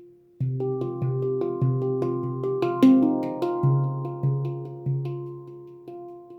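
Handpan in F Voyager tuning, made by Leaf Sound Sculpture, played by hand: after a brief pause, a phrase of ringing struck notes over a repeated low note, the loudest stroke near the middle, fading toward the end.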